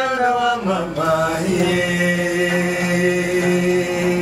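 Inanga trough zithers being plucked under a male voice singing in a chant-like style; about a second and a half in the voice settles on one long held low note that lasts until near the end.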